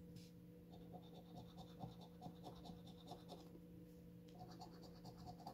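Faint scraping of a coin rubbed back and forth over the coating of a scratch-off lottery ticket, in quick even strokes of about four a second.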